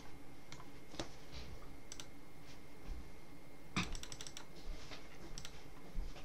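Scattered light clicks from a computer mouse and keyboard being worked, with a quick run of several clicks about four seconds in.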